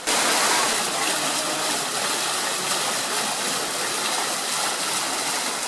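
Fountain water splashing and running steadily, a constant rushing hiss that begins suddenly.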